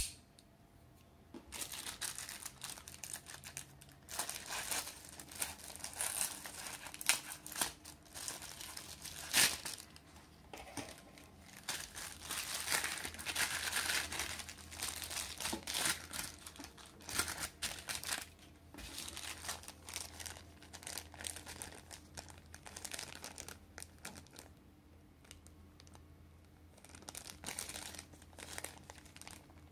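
Packaging being handled, crinkled and torn open by hand, in irregular rustling bursts. There is a sharp click right at the start.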